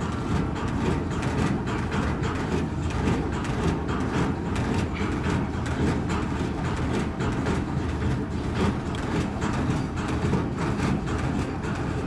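Machinery running steadily: a low rumble with a rapid, uneven clatter throughout.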